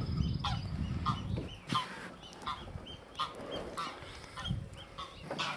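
Birds calling over and over in short calls, about two a second. Under them is a low rumble that dies away after about a second and a half.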